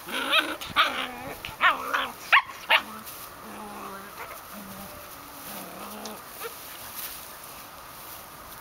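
White Swiss Shepherd dogs and puppies playing: a quick run of sharp yelps and barks over the first three seconds or so, then quieter low sounds in short stretches.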